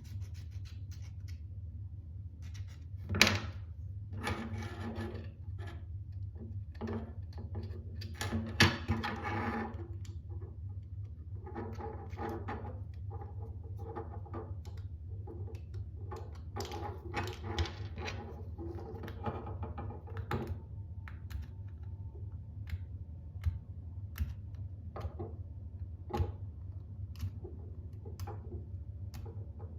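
Handling and working of small 3D-printed plastic knife parts: scattered clicks, stretches of rubbing or scraping, and two sharp knocks, the loudest about three and eight and a half seconds in, over a steady low hum.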